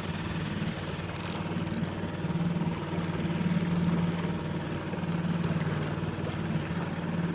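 Small fishing boat's motor running steadily at low trolling speed as the boat is turned in a slow circle. A few brief, faint high ticks sound over it.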